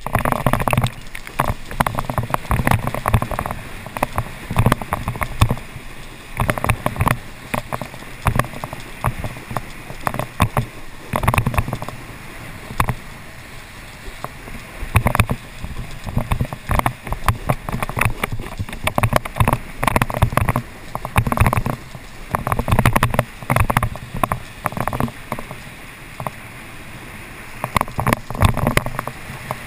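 Wakeboard skimming across lake water while towed by a cable: a continuous rushing, splashing hiss of spray with frequent uneven surges.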